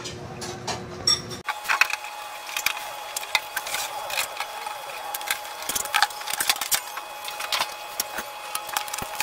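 Many small clicks and knocks from the Sakura AV-733US amplifier's metal top cover being handled and lifted off to open the case.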